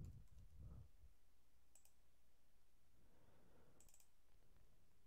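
Near silence: faint room hum with two soft computer clicks about two seconds apart.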